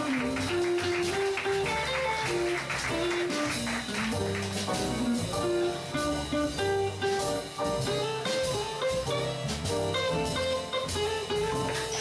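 A small live jazz band playing an instrumental passage: a guitar plays a single-note melody over drums, with light cymbal strokes.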